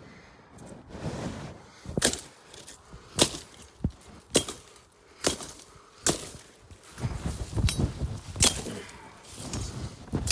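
A hand tool chopping through sneezeweed stalks: about ten sharp strikes, roughly one a second, starting about two seconds in, with rustling between strokes in the second half.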